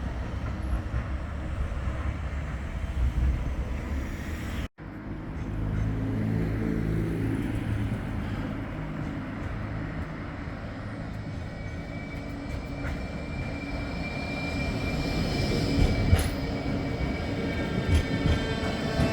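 Bombardier Flexity 2 tram running on street track, with a steady low rumble. A high whine comes in about two-thirds of the way through, and the sound breaks off for a moment about five seconds in.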